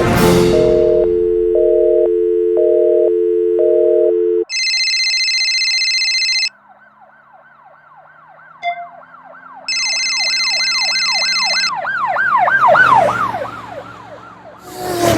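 A string of stock electronic sound effects. First a steady low tone with a higher note switching on and off, then high beeping tones that start and stop. Under them runs a fast, warbling siren-like sweep, rising and falling several times a second and growing loudest near the end.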